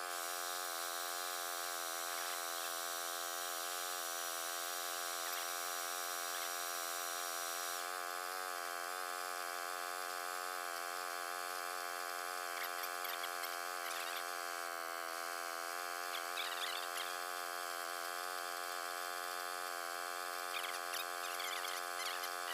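A steady, faint buzzing hum, with a few faint ticks from around the middle onward.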